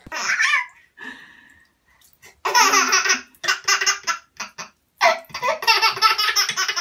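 Baby laughing hard in several bursts, the longest near the end.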